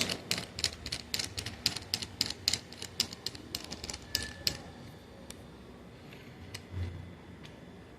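Rapid metal clicking, about four to five clicks a second for the first four and a half seconds, then a few scattered clicks: a gear puller being worked on the fifth-gear assembly of a Chevrolet Cobalt manual gearbox.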